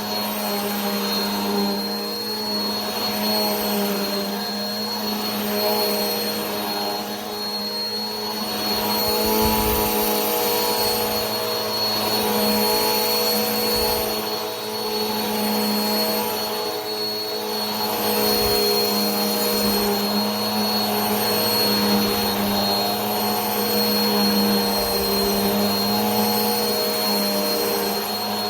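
Vacuum cleaner running steadily: a continuous motor hum with a high whine and airy hiss, swelling and easing slightly every few seconds.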